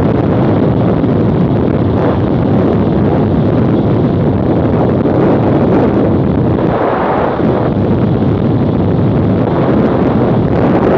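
Steady wind rush on the microphone of a camera riding on a BMW F800GS motorcycle at road speed, over the bike's parallel-twin engine and tyre noise.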